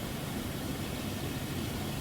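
Steady rain falling: an even, unbroken hiss with a deeper rumble underneath.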